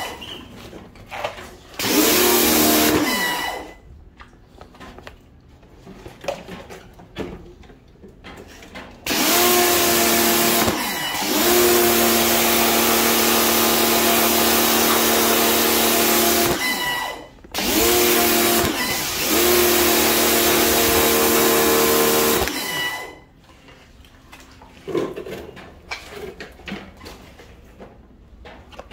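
Electric pressure washer running in stop-start bursts: each time the trigger is pulled, the pump motor whines up to speed along with the hiss of the water jet on tile and wall, then drops out when it is released. The longest run comes about a third of the way in, another just after the middle, with shorter ones near the start.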